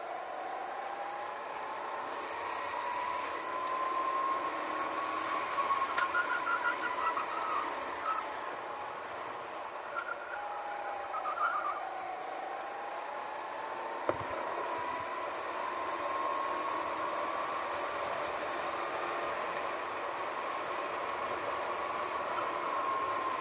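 Go-kart engine heard from the driver's seat, its pitch climbing as the kart accelerates, dropping back about halfway through, then rising steadily again toward the end. A single sharp knock about fourteen seconds in.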